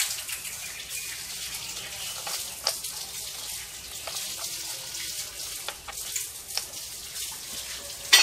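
Light clicks and knocks of metal car parts being handled at a wheel hub, over a steady hiss, with a sharper knock at the very end.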